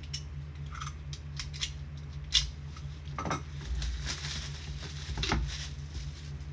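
Gloved hands opening and handling trading-card packaging and hard plastic top loaders: scattered clicks, taps and brief rustles of plastic and cardboard. A steady low hum runs underneath.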